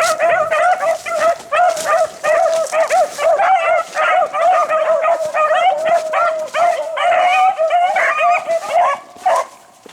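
A pack of beagles yipping and baying, many overlapping voices, falling away about nine seconds in.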